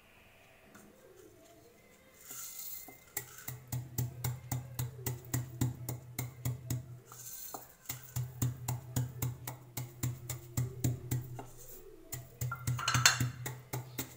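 Wooden pestle pounding whole coriander seeds and dried pomegranate seeds in a wooden mortar: steady dull knocks about three a second, with a couple of short breaks.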